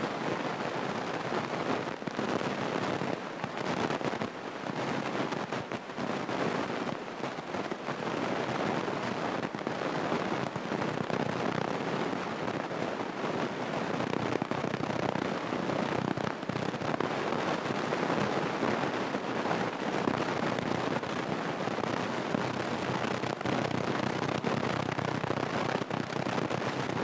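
Small propeller airplane's engine and cabin noise while taxiing, a steady rushing noise broken by frequent crackles and rattles.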